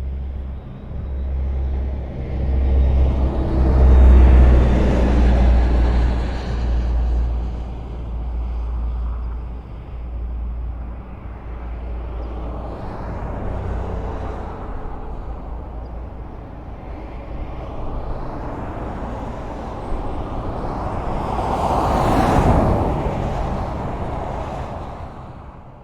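Highway traffic: the steady tyre and engine rumble of cars passing, swelling as vehicles go by, with the loudest pass-by about 22 seconds in. The sound starts to fade out near the end.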